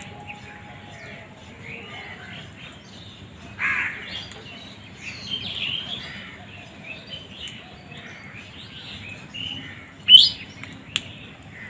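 Crows cawing, with other birds chirping around them; a louder call comes about three and a half seconds in, and the loudest, sharpest call about ten seconds in, followed by a short click.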